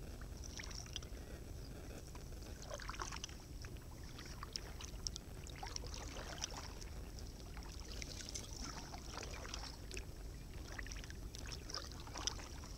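Kayak paddling in calm water among floating ice: paddle strokes splashing and dripping in clusters every two to three seconds, over a steady low rumble.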